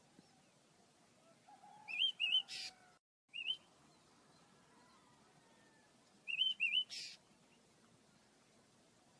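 Pet birds chirping: short rising two-note calls, heard twice in quick pairs, each time followed by a brief hissy burst.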